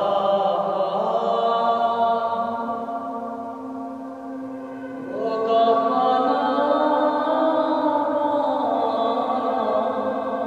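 Several voices chanting long held notes over a steady low drone. The sound eases a little, then about halfway through a new voice comes in with an upward slide.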